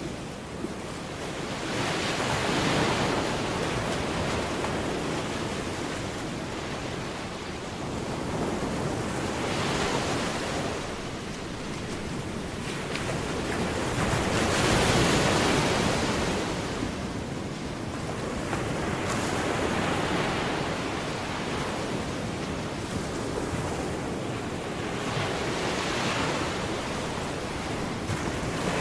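Ocean waves washing in and out, the noise of the surf swelling and falling back about every five to six seconds.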